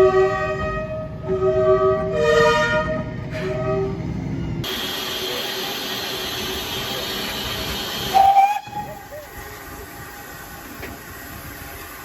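A train horn sounding several short blasts, each a chord of several notes, during the first three seconds or so. Then a steady hiss comes in suddenly, with one more brief loud tone about eight seconds in.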